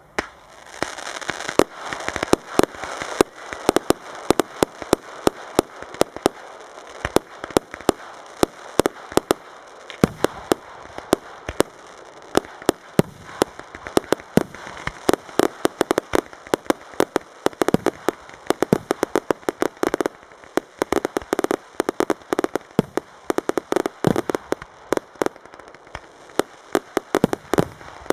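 Fireworks display: a dense, continuous run of sharp bangs and crackles, several reports a second, over a steady crackling hiss, beginning abruptly.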